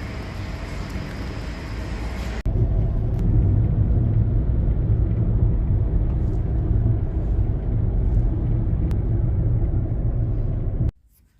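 Moving car: steady road and engine noise. About two and a half seconds in it turns abruptly into a louder, deeper rumble, which cuts off suddenly near the end.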